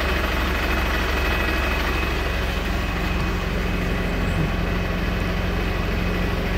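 Steady low mechanical drone of an idling heavy vehicle engine, with a thin, high, steady tone above it.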